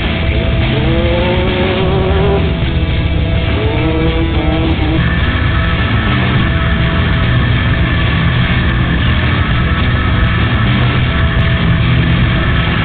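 Off-road race vehicle's engine running hard at speed. Its pitch climbs twice in the first few seconds as it accelerates, then holds steady.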